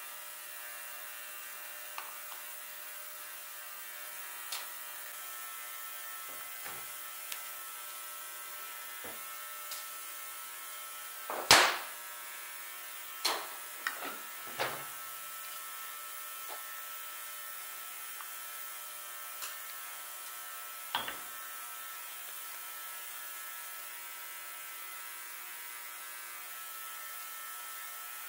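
Steady hum with scattered clicks and knocks of metal parts and tools handled while a carburetor is taken apart; the loudest knock comes about halfway through, a quick cluster follows, and one more comes later.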